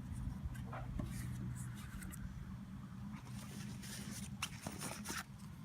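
Faint rustling and a few light clicks as small gear items are handled and pulled out of a sling pack, over a low steady hum.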